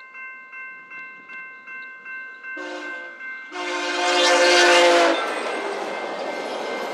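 Railway crossing bell ringing at about three strikes a second, then the air horn of VIA Rail F40PH-2 locomotive 6416 sounds a short blast and then a longer, loud one at the crossing. The train then rolls past over the crossing with a steady loud rush of wheels and engine.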